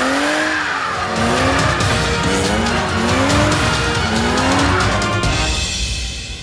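Car engine revved hard again and again, its pitch rising about five times, over the tyre squeal of a wheel spinning in a smoky burnout. The sound fades away near the end.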